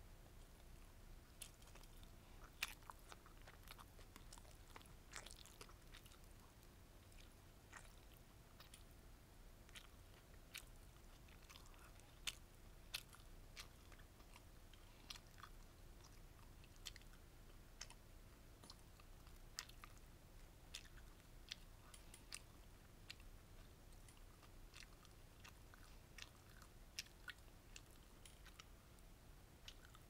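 Close-miked mouth chewing bulgogi gimbap, with its rice, seaweed and crunchy vegetables: faint, irregular small crunches and clicks, a few of them sharper.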